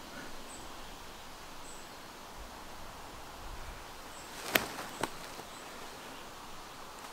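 Two sharp knocks about half a second apart, a thrown golf disc striking trees, over quiet outdoor ambience with a few faint high chirps.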